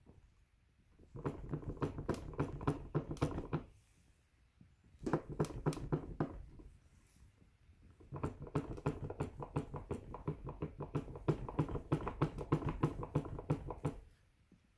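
Rapid clicking creaks from the steering stem of a Kaabo Wolf Warrior 11 electric scooter, in three bouts of a few seconds each with quiet pauses between. The dealer, after inspecting it, judged this stem noise normal.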